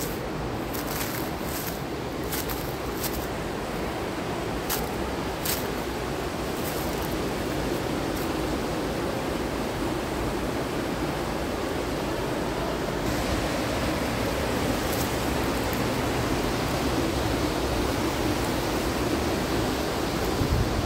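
Steady rush of a rocky mountain stream and its small cascade, getting a little louder and brighter about two-thirds of the way through. A few short, sharp crackles stand out over the first six seconds.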